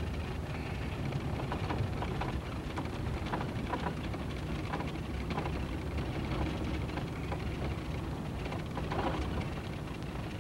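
Car cabin noise while driving slowly: a steady low rumble of engine and tyres on a rough, poorly paved town street, with faint scattered clicks and rattles.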